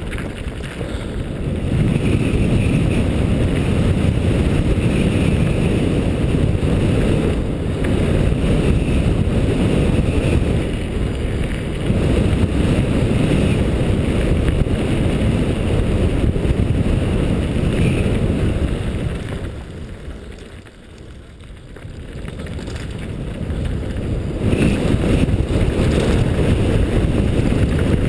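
Wind rushing over a helmet-mounted action camera's microphone and the tyres and frame of a 2010 Cove Shocker mountain bike rumbling and rattling over loose gravel on a fast descent. The noise drops off for a couple of seconds about two-thirds of the way through, then builds back up.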